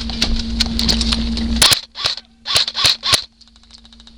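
Airsoft guns firing: scattered sharp cracks, then five louder shots between about two and three seconds in, and a faint rapid full-auto burst near the end.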